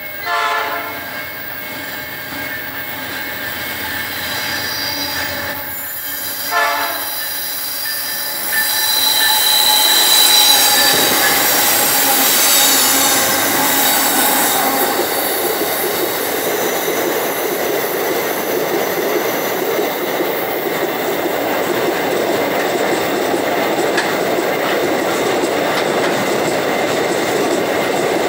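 Two short blasts of a diesel locomotive horn, then a pair of MRS GE AC44i diesel-electric locomotives running past with high-pitched wheel squeal on the curve. After them comes the steady rumble and clatter of empty iron-ore wagons rolling by slowly under a speed restriction.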